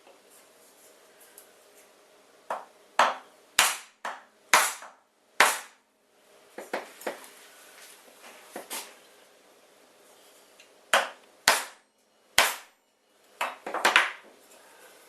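About fifteen sharp hammer taps, spaced unevenly and in small groups, tapping a CNC machine part a little further into position.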